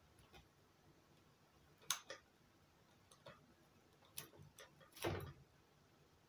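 A crow knocking about in its room: scattered sharp taps and clicks, with the loudest about two seconds in and a fuller, slightly longer knock about five seconds in.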